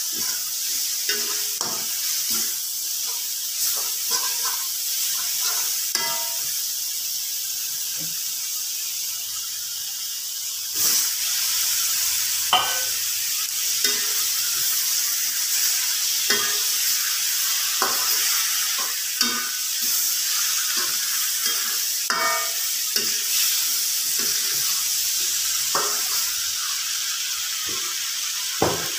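Vegetables and dried anchovies sizzling in hot oil in a steel wok while a metal slotted spatula stirs them, scraping and clinking against the pan about once a second. The sizzle gets louder about a third of the way through.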